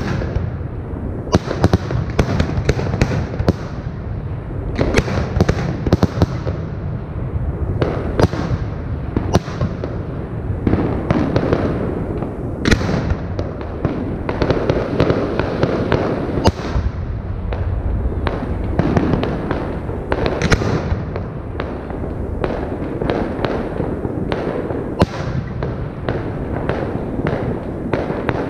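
Fireworks display: aerial shells bursting overhead one after another, with sharp bangs coming every second or so over a continuous rumble and crackle of further bursts.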